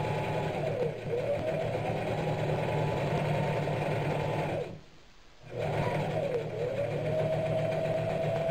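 Singer electric sewing machine stitching a seam, its motor whine rising and falling as the speed changes. It stops for about a second near the middle, then starts again and runs steadily.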